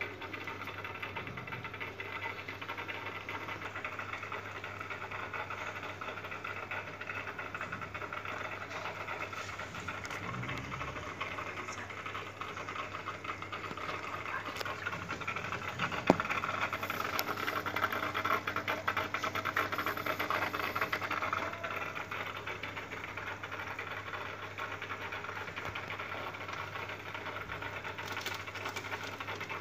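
Aquarium air pump humming steadily, with bubbling in the tank water. A single sharp click comes about halfway through.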